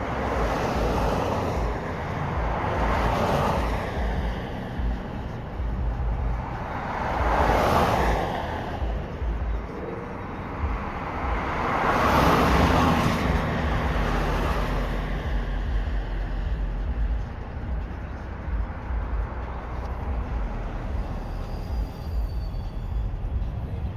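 Road traffic: several vehicles pass one after another, each swelling up and fading over about two seconds, over a steady low rumble.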